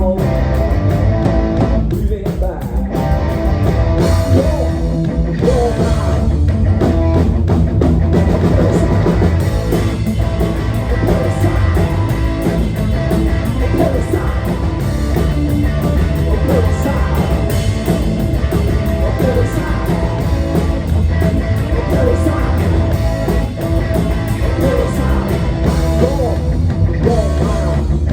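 Live punk rock band playing loud with distorted electric guitar, bass and drums, and some singing.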